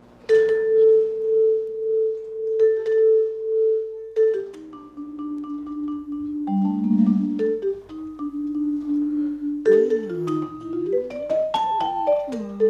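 Vibraphone played slowly with mallets. One long ringing note is followed by a slow phrase of sustained notes stepping down and back up, then a quicker run near the end. A lower tone slides down and back up beneath it near the end.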